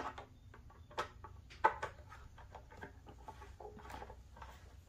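Light clicks and taps of a screwdriver and small screws being handled against the board's plastic fender and flight fin as the screws are set in, with three sharper knocks in the first two seconds.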